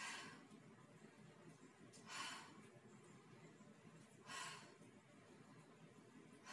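A woman breathing out hard on each repetition of a home workout exercise: three short breathy exhalations about two seconds apart, with near silence between them.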